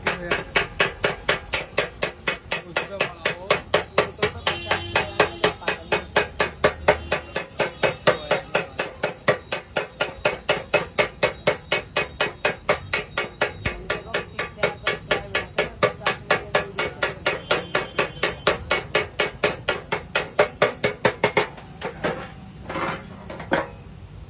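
Steady, rapid hammering on the sheet-steel motorcycle fuel tank, about four blows a second with a metallic ring. The hammering stops about three seconds before the end and is followed by a few irregular knocks.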